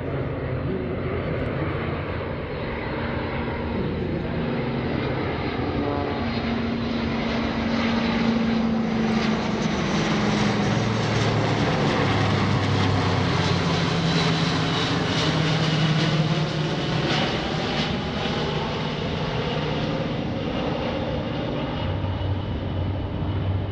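A C-17 Globemaster III's four turbofan jet engines and a C-47 Skytrain's twin radial piston engines flying past together in a low formation flyby. The sound grows louder as they approach and peaks about two-thirds of the way through. It then fades as they pass, with the engine tones sliding down in pitch.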